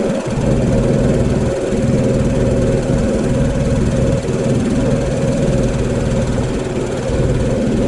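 Pressure washer's engine running steadily.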